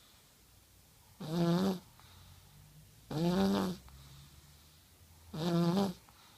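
A sleeping one-year-old child snoring: three evenly spaced snores about two seconds apart, each a short, tone-like snore lasting under a second.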